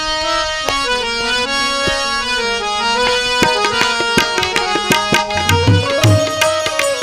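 Harmonium playing an instrumental interlude of a devotional bhajan between sung lines, accompanied by a hand drum. The drum strokes grow denser about halfway through, with a few deep bass strokes near the end.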